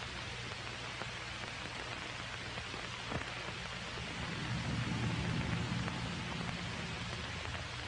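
Steady hiss and crackle with occasional clicks, the surface noise of an old optical film soundtrack, over a low hum. A low rumble grows louder about halfway through.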